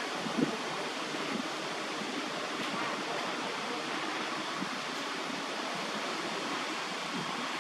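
Steady, even hiss of outdoor background noise with no distinct sound standing out, and one brief low knock about half a second in.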